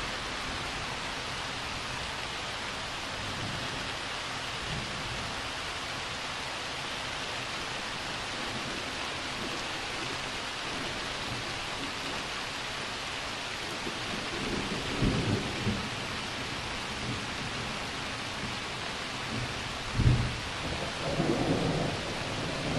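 Thunderstorm with steady rain falling throughout. Thunder rumbles about 15 seconds in, then a louder sharp crack with rolling rumble about 20 seconds in.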